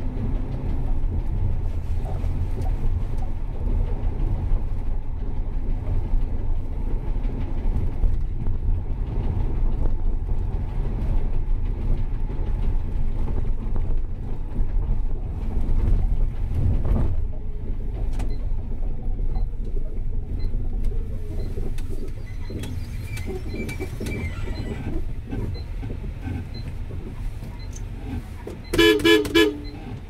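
Steady low rumble of a vehicle travelling through city traffic, easing somewhat in the last third. A short horn toot sounds near the end.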